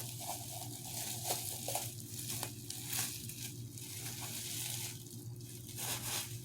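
Packaging being unwrapped: irregular crinkling and tearing rustles as the last item is taken out of its wrapping, over a faint steady hum.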